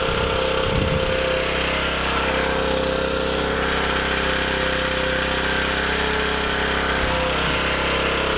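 Small portable gasoline generator engine running steadily at its governed speed with no load, fuelled by gasoline alone.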